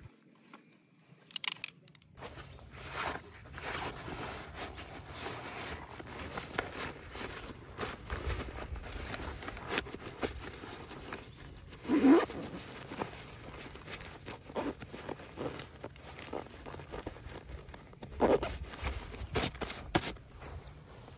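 Irregular rustling and scraping, like gear or fabric being handled, starting about two seconds in. Two louder pulls stand out, about twelve and eighteen seconds in.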